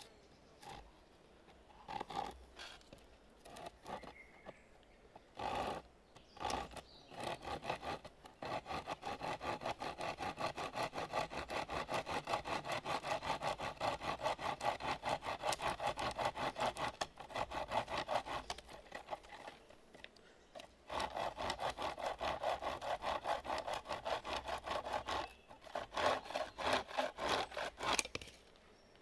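Hand saw cutting through wood in quick, even back-and-forth strokes. A few separate scrapes come first, and the strokes stop for about two seconds around two-thirds of the way through. The run ends with a few slower, harder strokes.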